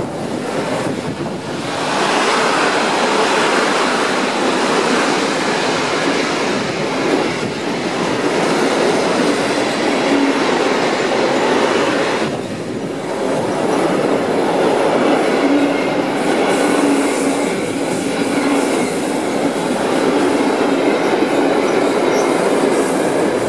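Freight train of covered sliding-wall wagons rolling past close by: a loud, steady rush of wheels on rail that dips briefly twice, with faint wheel squeal about ten seconds in and again a few seconds later.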